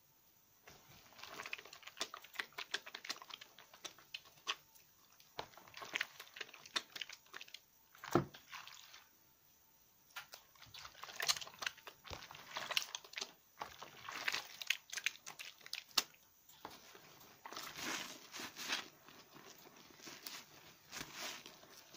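A soaked bar of soap being rubbed and turned between wet hands in soapy water: wet squishing with crackling foam. It starts about a second in, pauses briefly around the middle, and near the end a sponge is rubbed against the bar.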